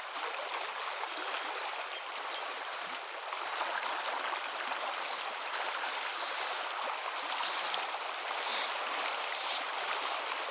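Fast river current running over rocks: a steady rushing wash of water.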